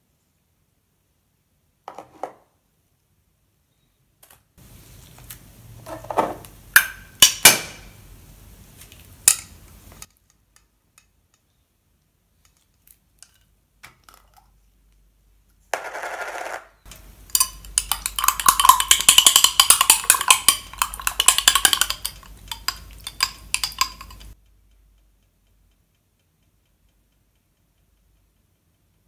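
A glass jar of raspberry jam being handled: a few sharp knocks and clicks against the glass. Then several seconds of a metal spoon scraping and clicking quickly inside the jar as jam is scooped out.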